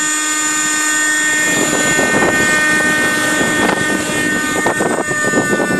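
Thunder Tiger Raptor 30 nitro RC helicopter in flight: the two-stroke glow engine and rotors give a steady high whine. A rough rushing noise joins about a second and a half in.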